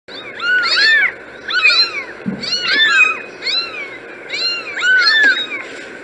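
Several kittens meowing: short, high-pitched mews that overlap, coming in clusters about once a second.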